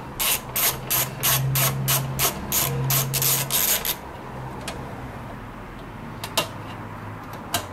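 Socket ratchet clicking in a quick regular run, about three or four clicks a second, as a bolt is turned out; a few single clicks follow.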